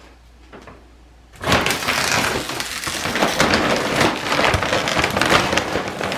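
Dry dog kibble poured into a storage container: after about a second and a half of quiet, a loud, dense rattling rush of many small pellets striking and tumbling.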